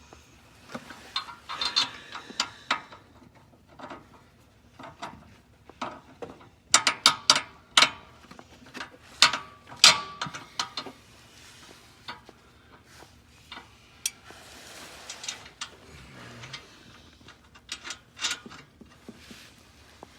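Hand tools working on exhaust hardware: ratchet-like clicking and metal clinks in short flurries, busiest in the middle.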